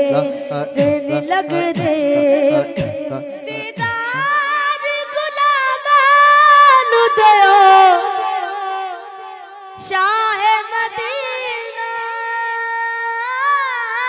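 A boy singing a Punjabi naat into a microphone, holding long wavering, ornamented notes. A rhythmic backing with sharp clicks and a low pulse runs under the voice for the first few seconds and stops about four seconds in.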